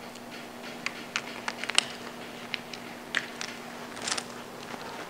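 Vinyl tint film crackling and ticking as it is pulled and trimmed with a hand knife along the tail light edge. The sound is scattered sharp clicks with a short crackly stretch about four seconds in, over a faint steady hum.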